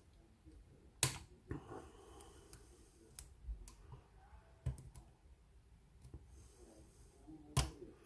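Brass pin-tumbler lock cylinder being single-pin picked with a short hook under tension: several small sharp clicks as pins set at the shear line, the loudest about a second in and near the end.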